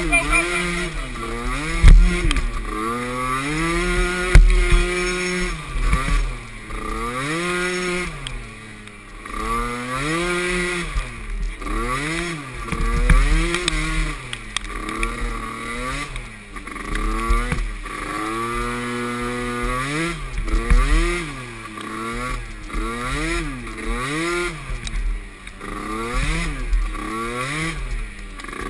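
Small youth (Pee Wee class) ATV engine revving up and falling back over and over, throttle on and off in short bursts every second or two as it races over the course. Low thumps run under it.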